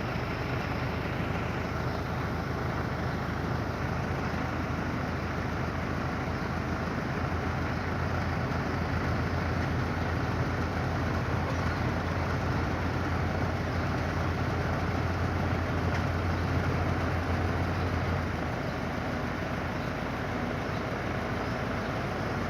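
Engine of a crane-manipulator truck running steadily, powering its hydraulic crane. It runs a little louder for about ten seconds in the middle, then eases back near the end.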